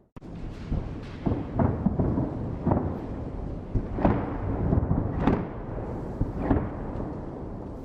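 Festive fireworks salute booming, heard from far off: a string of sudden bursts a second or so apart, each rolling away in echoes over a continuous low rumble.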